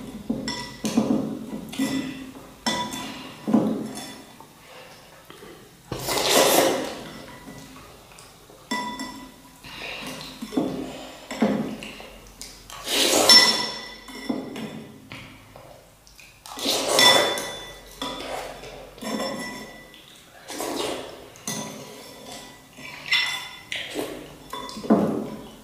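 A metal spoon and chopsticks clinking and scraping against ceramic bowls while instant noodles are eaten, with irregular clinks that ring briefly and a few louder noisy bursts between them.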